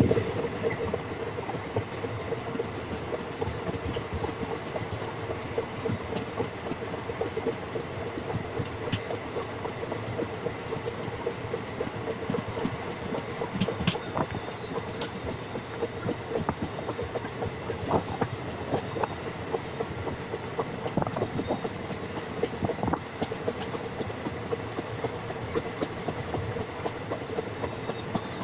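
Indian Railways passenger coach running at speed, heard at its open window: a steady rumble of wheels on rail, with a steady hum and scattered sharp clicks and knocks from the wheels and running gear.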